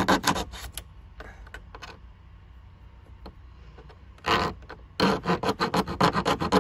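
Hacksaw cutting through the plastic mounting lugs of a dashboard radio tray in quick back-and-forth strokes, about five a second. There is a run of strokes at the start, a few scattered strokes after it, a short rasp about four seconds in, then a steady run of strokes near the end.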